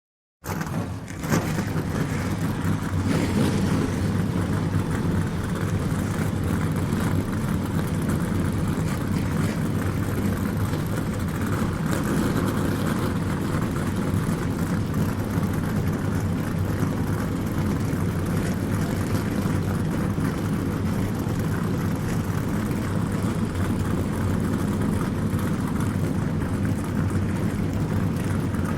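NASCAR stock-car V8 engines running at racing speed in a steady, unbroken drone. The sound cuts in suddenly about half a second in.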